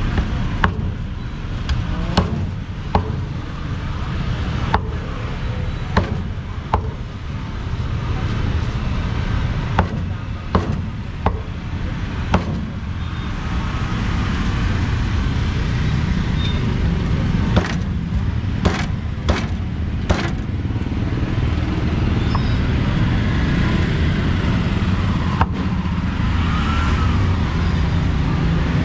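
Meat cleaver chopping crocodile meat on a thick wooden chopping block: irregular sharp knocks, some in quick pairs, over a steady low rumble of traffic.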